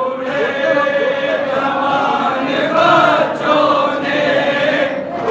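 Group of men chanting a nauha, a Shia lament, together in unison.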